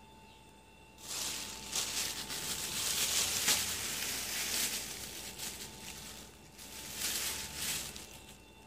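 Loud rustling and crackling of crinkly material, starting about a second in, easing off and then rising again briefly near the end.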